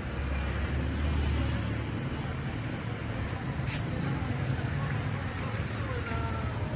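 Traffic noise on a town street: a steady low rumble of motor vehicles, with mototaxis and motorcycles passing.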